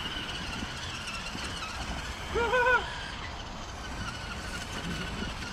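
Electric motors of radio-controlled monster trucks whining as the trucks drive, with a short high wavering voice about two and a half seconds in.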